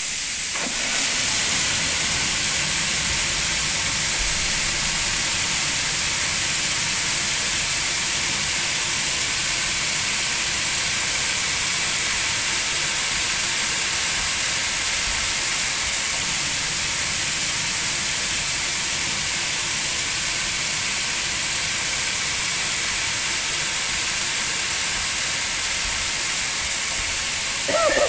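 Farm machinery running steadily, a loud continuous mechanical noise with a strong high hiss over it and no change in pace.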